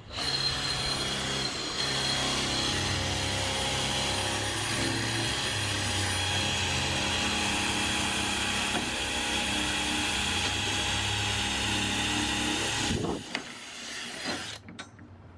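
Cordless drill running steadily, drilling through a trailer door at a hinge, for about thirteen seconds before it stops; a few knocks follow.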